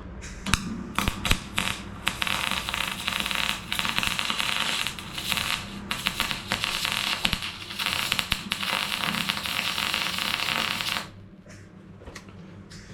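MIG welder stitch-welding a steel sill panel: a few short spurts of crackling arc, then a long run of steady frying crackle broken by brief pauses, stopping about two seconds before the end.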